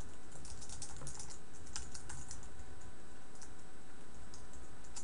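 Typing on a computer keyboard: irregular key clicks, some in quick runs, over a low steady background hum.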